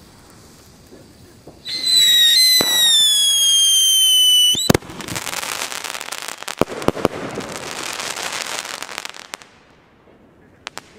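A firework shot whistles loudly for about three seconds as it climbs, its pitch sinking a little, then bursts with a sharp bang. The burst is followed by several seconds of dense crackling that dies away near the end.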